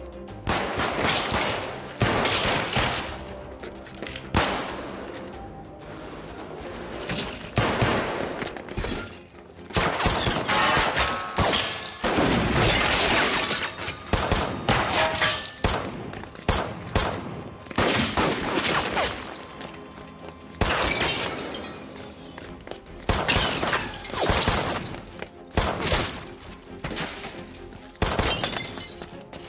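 Dramatized gunfight: a semi-automatic pistol fires many shots, with bullets striking wood and other surfaces, over tense action background music.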